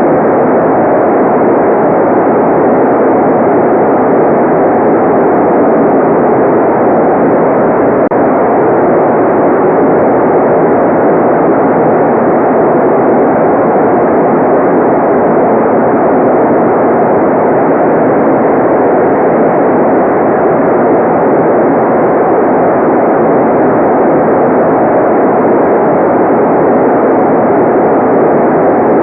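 Steady white noise: a loud, even rush of noise that does not change.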